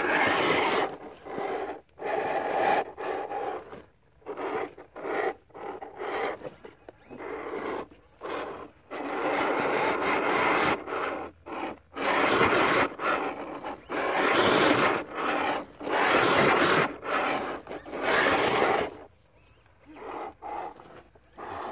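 RC scale crawler truck climbing rough sandstone in stop-start throttle bursts: drivetrain whirring and tyres scrabbling and scraping on the rock. The pushes get longer in the second half and die away near the end.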